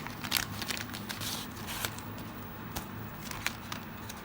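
Packaging crackling and rustling with scattered sharp clicks as a pouch of grip tape is opened by hand.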